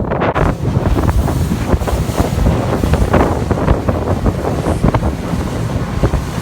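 Wind buffeting the microphone aboard a fishing boat: a loud, gusty rumble with uneven spikes, over the sound of the boat on the water.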